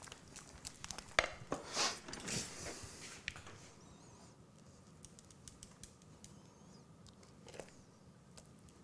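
Thick polenta being scraped out of a stainless steel saucepan into a ceramic bowl: light scrapes and clicks of the pan, busiest in the first three seconds, then faint, with a single tap near the end.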